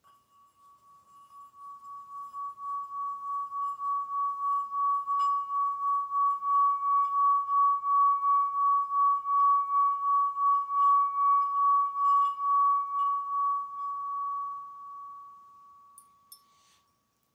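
Singing bowl played around its rim: one pure, high, ringing tone that pulses about twice a second, swells over the first several seconds, holds, then dies away near the end.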